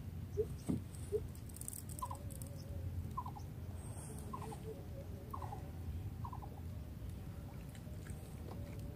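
Quiet waterside ambience with a low rumble. A small animal gives faint short chirping calls about once a second.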